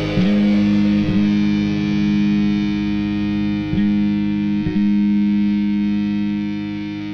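Distorted electric guitar ringing out long held notes through effects, shifting to a new note about four times, slightly fainter near the end.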